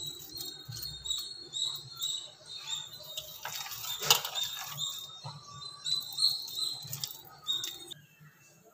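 Hands squeezing and mixing a thick, wet urad dal and ash gourd batter in a bowl: soft squelches with a run of short, high squeaks and a sharper knock about four seconds in.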